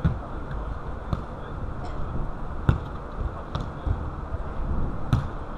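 A football being kicked and bouncing on an artificial-turf pitch: about five short, sharp thumps a second or so apart, the loudest about halfway through, over a steady low rumble.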